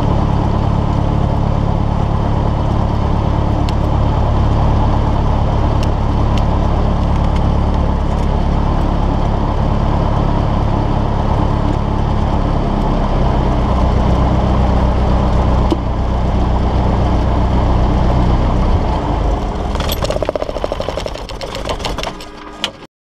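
Cessna 172's piston engine idling steadily at low power. About 20 seconds in it is shut down, and the propeller winds down in a short run of slowing, uneven strokes before stopping.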